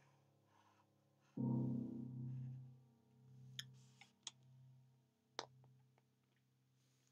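Slow, quiet piano music: a low chord struck about a second and a half in, left to ring and fade, with three faint clicks in the middle.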